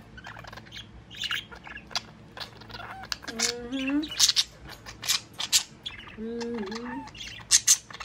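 Budgerigars chattering: a quick run of short, sharp high chirps and squawks that keeps on without a break and is loudest near the end.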